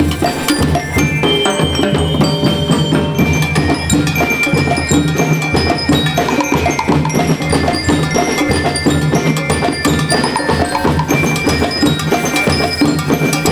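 School marching band playing: ringing metallic bell tones carry the tune over a steady beat of drums and brass.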